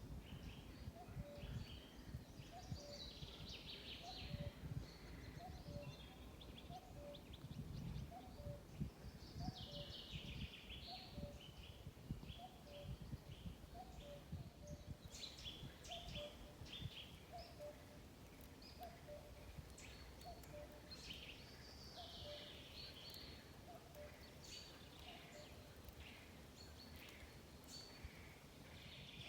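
Faint forest ambience: several birds chirping and singing, some near and some far, over a low two-note call that repeats about every second and a half until near the end. An uneven low rumble of wind on the microphone runs underneath.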